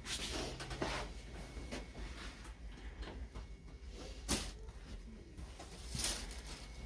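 A person shifting on a padded chiropractic treatment table: rustling and soft knocks, with one sharp knock about four seconds in and another near the end.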